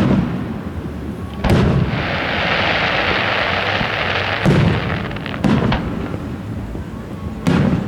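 Aerial fireworks shells booming, five sharp reports a second or two apart, with a long hiss spreading out between about two and four and a half seconds in.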